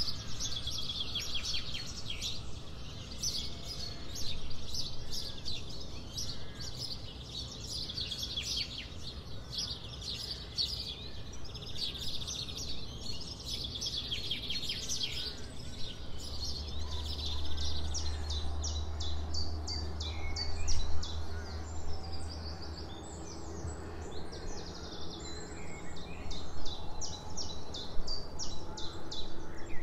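Birds singing, a busy chorus of quick high chirps and trills, with a low steady hum coming in about halfway through.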